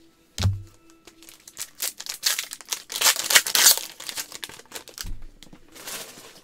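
Foil trading-card pack wrapper crinkling as gloved hands crumple it, loudest in the middle. A dull knock of handling about half a second in and another near the end.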